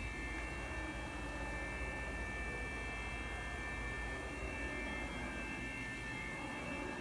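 Steady hum of the running machinery around a 5-axis CNC router, with several steady high-pitched whining tones over a low rumble.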